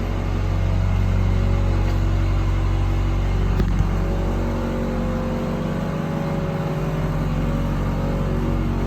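Box truck's engine running steadily under way, a little louder about a second in, with two short clicks about three and a half seconds in.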